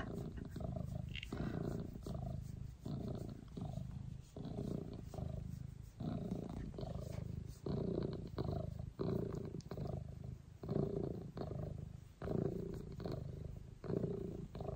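Domestic cat purring close to the microphone while being stroked on the head, an even, pulsing rhythm that keeps going without a break.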